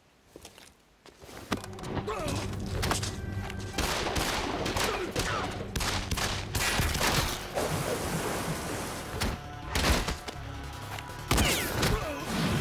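A rapid exchange of pistol gunfire, many shots in quick succession starting about a second and a half in, with music underneath.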